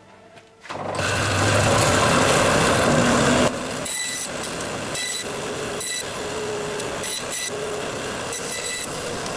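Bandsaw switched on about a second in for a test run on a newly made wheel tyre, running loudly. A few seconds later it settles to a lower, steady running sound.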